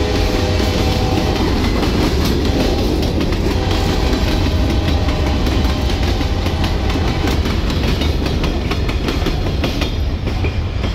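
Freight train's covered hopper cars rolling past: a steady rumble with wheels clicking over rail joints. A held horn note fades out in the first second or two, and the rumble eases as the last car passes near the end.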